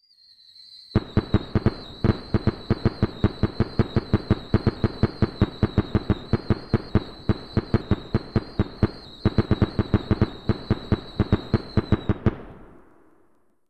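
Fireworks barrage: a rapid string of sharp bangs, about four or five a second, over a steady high whistle, with a brief break about two-thirds of the way through. The bangs stop suddenly and the noise dies away.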